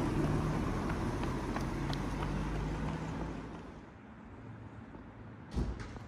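Street traffic noise with a motor vehicle's engine running as a steady low hum, fading away after about three and a half seconds. One sharp knock comes near the end.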